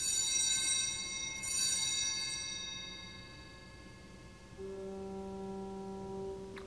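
A small bell struck a few times, each strike ringing high and fading slowly. About four and a half seconds in, a single steady low note is held for about two seconds.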